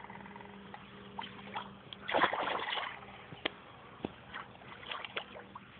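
A large hooked fish splashing and thrashing at the water surface as it is played on the line, with the loudest splash about two seconds in.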